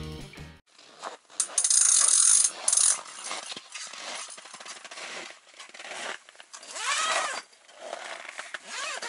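Fishing tackle being handled: irregular clicks, rattles and rustling, with a loud hiss lasting about a second and a half shortly after the start.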